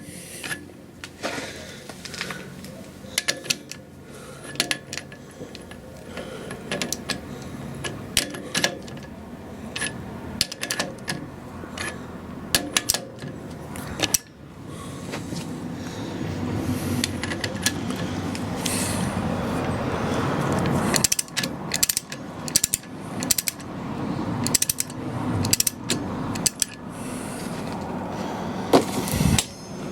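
Ratchet socket wrench clicking in irregular runs of strokes, with sharp metallic knocks, as the nut on a car's front wheel bearing hub is tightened down.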